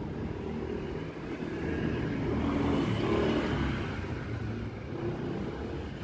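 A road vehicle passing by: a rushing rumble that builds to its loudest about halfway through and then fades away.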